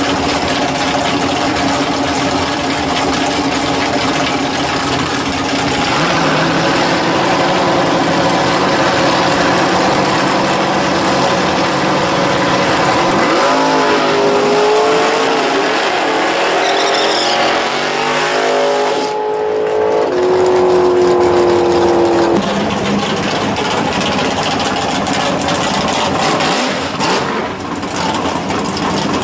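Drag-race car engines at a drag strip's starting line: a steady loping run for the first dozen seconds, then revs that rise and fall in pitch about halfway through, a high held note around two-thirds of the way, and another car's engine running steadily near the end.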